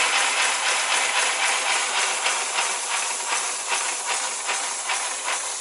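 Live-steam three-cylinder 0-8-4 garden railway locomotive under steam, a steady hiss slowly getting quieter. Its boiler is not holding pressure because the fire can't keep up.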